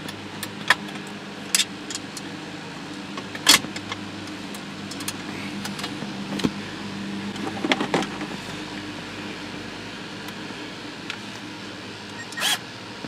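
Scattered clicks and taps of screws and a steel dash brace being handled as the screws are started by hand, with a louder clack about three and a half seconds in and a short burst near the end, over a steady low hum.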